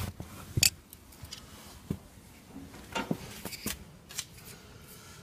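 A pleated cabin air filter with its plastic frame being handled: a few sharp clicks and light rustling.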